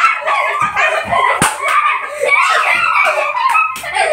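Excited children's voices shouting and laughing over one another, with a sharp slap about one and a half seconds in and a few lighter smacks.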